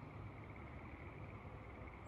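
Faint open-air ambience: a low steady wind rumble under a steady, faintly pulsing distant chorus of small creatures.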